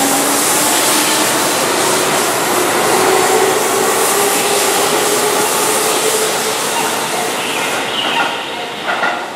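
Keihan electric commuter train running past the platform: steady wheel-on-rail noise with a faint motor hum, growing quieter near the end as the last car clears.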